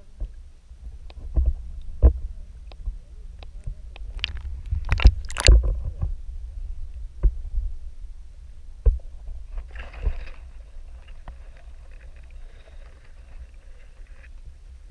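Underwater sound through a GoPro's waterproof housing: a steady low water rumble with scattered sharp knocks and clicks as the camera is jostled, the loudest cluster about four to five and a half seconds in. From about ten seconds in a faint hiss with a thin high tone runs on until near the end.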